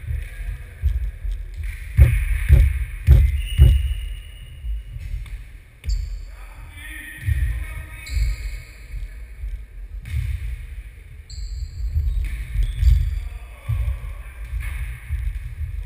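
A ball thumping on the wooden floor of a sports hall, four bounces about half a second apart, over a low rumble and distant voices.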